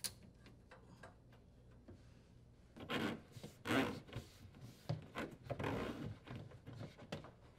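Corrugated plastic dishwasher drain hose rubbing and scraping in several strokes as it is fed through a hole in a wooden cabinet wall, starting about three seconds in.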